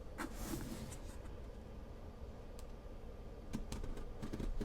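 Box cutter blade scoring packing tape on a cardboard box: a short scratch near the start, then scattered light clicks and taps, with a sharper click near the end.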